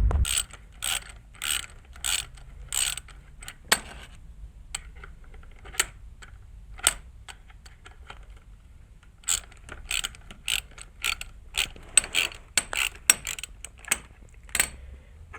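Hand ratchet clicking in short strokes as the forcing screw of a puller is tightened down on the driveshaft to pull off the lip and carrier bearing. The clicks come in an irregular series, sparse in the middle and more frequent in the second half.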